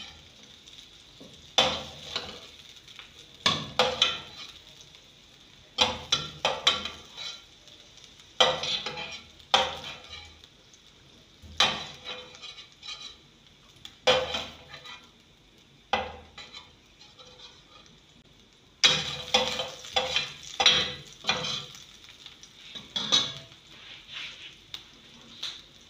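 Metal spoon scraping and clinking against a stainless steel frying pan and a pot as fried carrot pieces are scooped from one to the other, in irregular clusters of knocks. Hot oil sizzles faintly in the pan between them.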